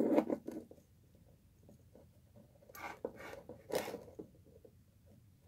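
Beaded craft wire being bent and twisted by hand: soft rustling, scraping and small clicks, louder right at the start and again about three and four seconds in.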